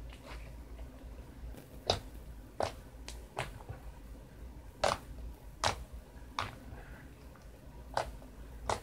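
Glossy white slime being squeezed and folded by hand, giving about eight sharp wet clicks and pops at uneven intervals, with quieter squishing between them.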